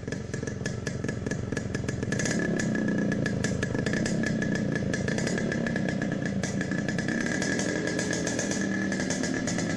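Motorcycle engine running, with a fast ticking beat, growing louder about two seconds in.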